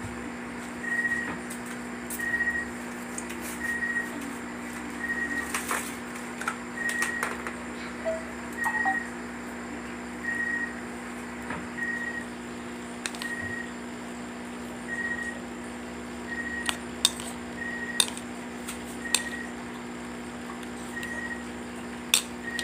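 A short high beep repeating about once a second over a steady low hum, with a few sharp clicks in the second half.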